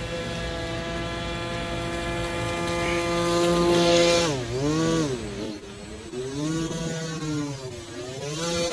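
RC airboat's electric motor and air propeller running with a steady whine that grows louder as the boat comes close. From about four seconds in, the pitch dips and climbs back three times as the throttle is eased off and opened again, then holds steady.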